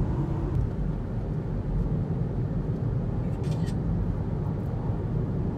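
Steady low rumble of road and engine noise inside a moving vehicle.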